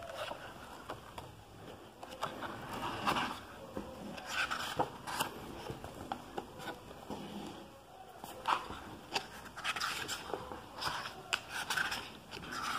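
Pages of a hardcover book being leafed through and handled: irregular paper rustles and scrapes with small clicks.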